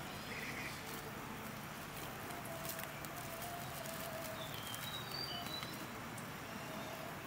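Outdoor ambience: a steady background hiss with faint, distant bird calls, including a brief high chirping about five seconds in.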